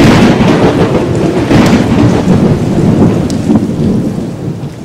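Thunderstorm sound: loud, steady rain with a deep rumble of thunder underneath, starting abruptly and fading away toward the end.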